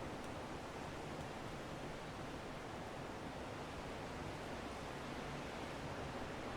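Strong wind blowing steadily, an even rushing noise without marked gusts or pauses.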